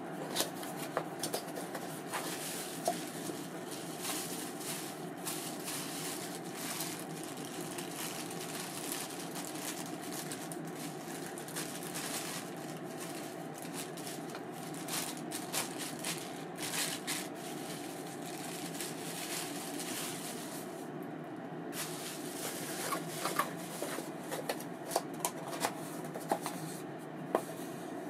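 ABU Ambassadeur 2500C baitcasting reel's spool spinning freely with a steady whir. The reel is tuned, with its oil cut to a minimum for the least drag. Scattered light clicks come and go, more of them near the end.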